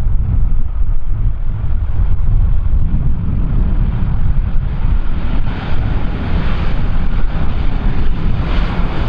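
Strong wind buffeting the microphone in a heavy, gusting rumble, with a hiss that grows louder about halfway through.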